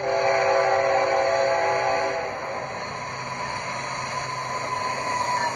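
Model diesel locomotive's sound system blowing a multi-note horn for about two seconds, then its running sound with a faint whine that slowly rises in pitch toward the end.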